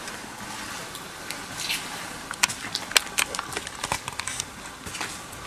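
Footsteps on a gritty, littered floor: scattered sharp clicks and crackles, bunched in the middle, over a steady faint hiss.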